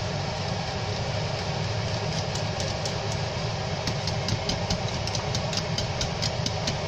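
Wire whisk being stirred through thin khichuri in a stainless-steel pot. From about two seconds in it clicks against the pot's side about three times a second, over a steady low hum.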